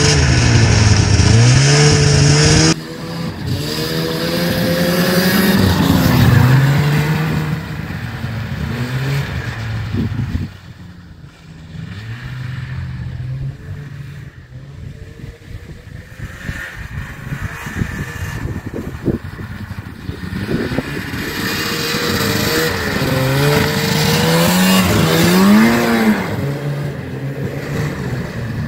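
A 1998 Yamaha V Max 500 XT snowmobile's twin-cylinder two-stroke engine revving up and down under throttle. It is loud and close at first, fainter for a stretch in the middle, then rises again near the end as the sled comes closer.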